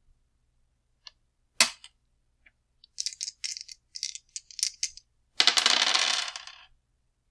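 Dice clattering in two parts. First come scattered sharp clicks and one loud clack, then a string of irregular clicks. Near the end there is about a second of dense, continuous rattling, like dice being shaken.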